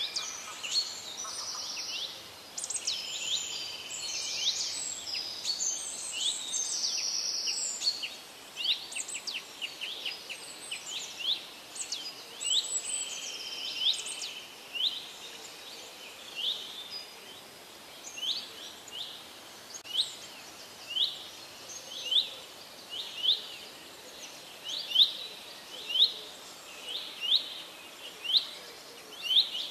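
Birds singing over a faint steady hiss, several songs overlapping at first; from about halfway one bird repeats a short call about once a second, growing louder toward the end.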